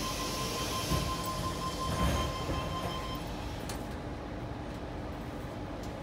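A Tangara electric train coming to a stop, heard from inside the carriage. A steady whine and hiss run with two low thumps, then cut off about three seconds in, leaving the quieter hum of the stationary train.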